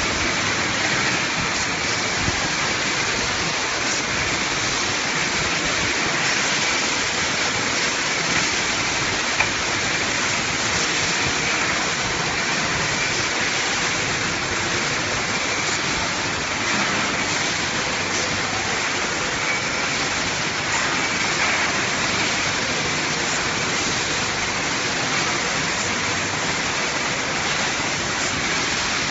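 Steady rushing, spray-like noise of a CNC glass cutting machine at work, even throughout.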